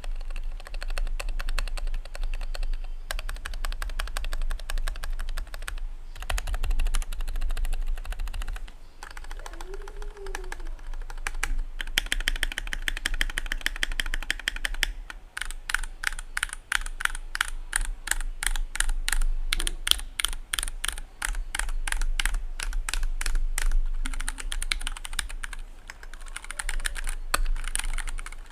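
Typing on a Kemove CNC mechanical keyboard with Gateron Red switches, PBT double-shot keycaps and a metal case: fast runs of clicking keystrokes broken by a few short pauses.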